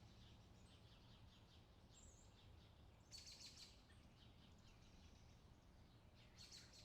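Faint, rapid twittering of small birds, with two louder bursts of chirps about three seconds in and near the end, over a low steady hum.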